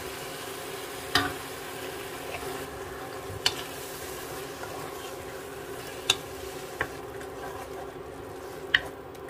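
Ground pork and vegetable filling sizzling in a wok as a wooden spatula stirs fresh tomato sauce into it, the spatula knocking sharply against the wok about five times.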